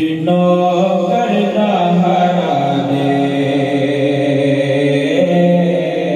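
Male voice singing a naat unaccompanied into a microphone, in long held melodic notes. The melody sits on a higher note, drops lower around the middle and climbs back near the end.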